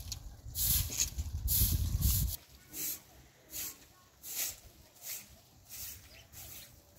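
Straw broom sweeping a dirt yard: a steady rhythm of brisk swishes, roughly three every two seconds. The strokes are louder over a low rumble for the first couple of seconds, then fainter.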